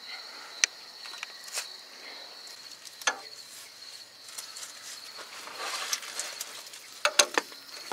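A steady high insect trill, with occasional light clicks and clinks scattered through it and a small cluster near the end.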